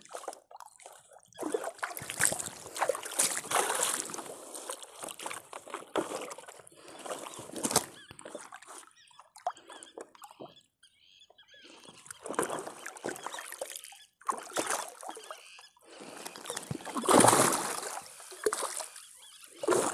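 Irregular sloshing and splashing of water around a small fishing float, with rustling as a fish is worked out of a nylon gill net; the loudest splashing comes near the end.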